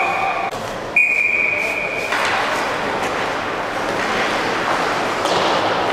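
Hockey referee's whistle: the end of one steady high blast, then a second blast about a second long, over the steady hum of an arena crowd.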